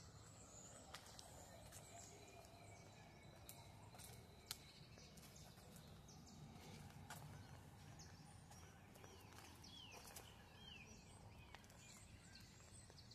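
Quiet outdoor ambience with faint birds chirping now and then, a few short calls clustered near the middle and end, over a low rumble and a few soft clicks.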